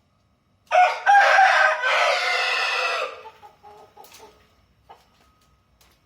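Rooster crowing once: a loud call of about two and a half seconds starting under a second in, followed by a few short, softer calls.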